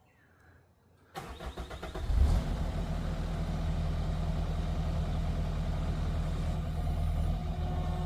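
A skid steer's engine cranking and catching about a second in, then running at a steady low idle.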